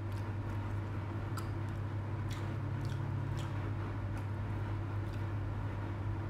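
Soft chewing of a mouthful of sponge cake, with a few wet mouth clicks, over a steady low hum.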